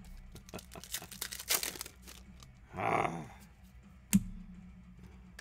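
Trading cards being handled and flipped through by hand: a quick run of light clicks and slides, a short denser rustle about three seconds in, and one sharp click about four seconds in.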